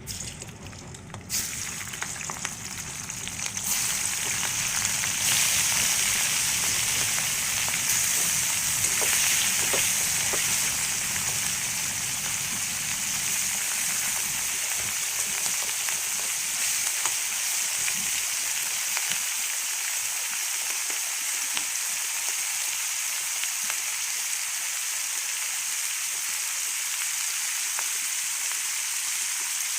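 Prawns frying in hot oil in a pan: a dense, steady sizzle with scattered small pops, growing louder about four seconds in.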